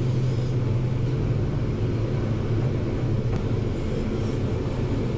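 Diesel engine of a Bergmann C815 site dump truck running steadily as the truck drives, a low, even drone.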